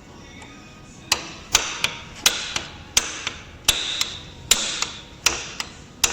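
Teflon mallet tapping an Allen key to tighten the rear universal-joint bolts of a driveline. The sharp taps start about a second in, a heavier blow roughly every three-quarters of a second with lighter taps between.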